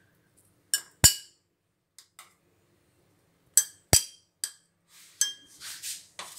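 Clinks and knocks of a spoon and tall clear serving tumblers handled on a stone countertop while fruit is added to layered falooda: a series of sharp separate taps, with two louder knocks about a second in and about four seconds in.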